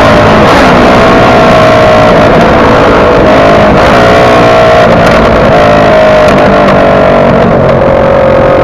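Motorcycle engine running while riding, its pitch drifting slightly up and down over a loud, steady rushing noise.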